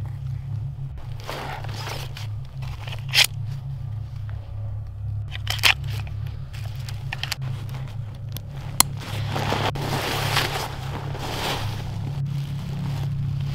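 Rustling and crunching of clothing and gear being handled, with a few sharp clicks, over a steady low rumble.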